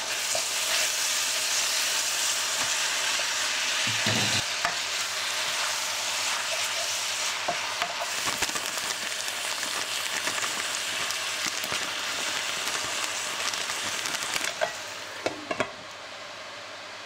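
Dak galbi sizzling in a frying pan while a wooden spatula stirs and scrapes through it. A few light knocks come near the end as a glass lid is set on the pan, and the sizzle quiets.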